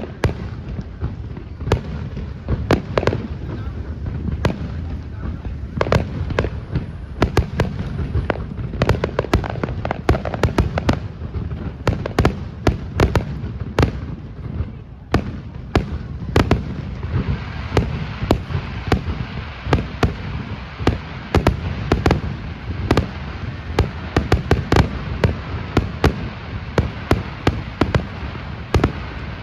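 Aerial fireworks going off in rapid succession: a dense run of bangs and booms. About halfway through, a steady crackling hiss joins the bangs.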